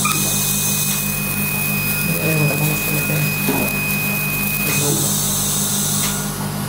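Surgical laser sounding its steady single-pitch emission tone while it fires, cutting an elongated soft palate; the tone stops about five seconds in. A steady hiss and a low hum run underneath.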